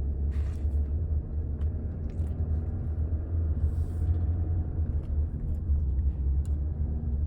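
Steady low rumble of a moving car, engine and road noise.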